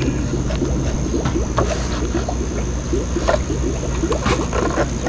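Water bubbling and gurgling in outdoor guppy tanks over a steady low hum, with scattered light clicks.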